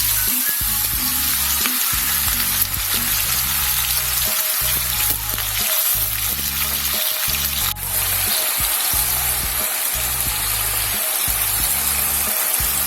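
Food sizzling and crackling in hot oil in a frying pan, with background music underneath.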